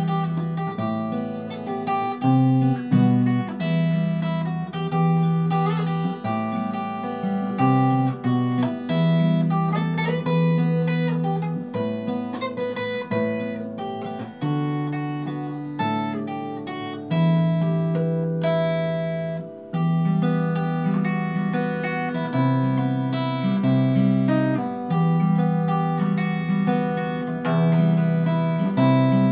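Acoustic guitar played fingerstyle as a solo instrumental: a bass line that changes about every second under a picked melody.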